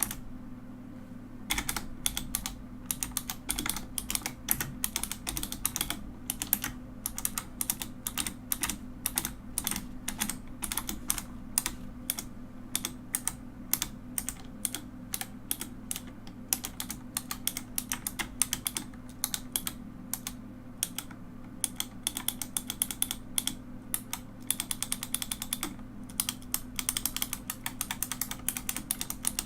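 Mechanical keyboard being typed on: a dense, continuous run of key clicks and clacks, briefly sparse for about the first second and a half.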